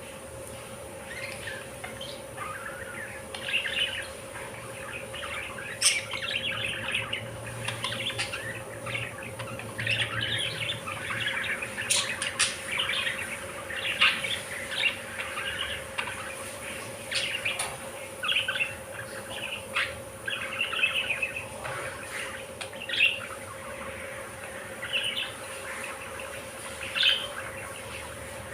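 Budgerigars chirping and chattering, many short, quick calls overlapping throughout, over a faint steady hum.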